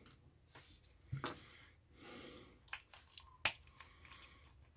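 Faint clicks and rustles of a small precision screwdriver working a screw in a plastic multimeter case, with the case being handled; the sharpest click comes about three and a half seconds in.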